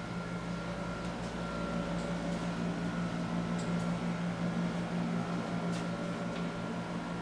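Steady low mechanical hum of a room air conditioner, with a few faint clicks.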